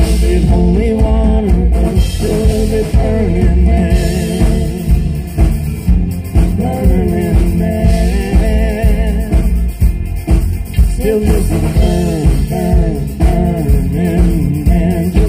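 Live country band playing through a stage PA: acoustic and electric guitars over a steady low beat, with a wavering melodic line on top.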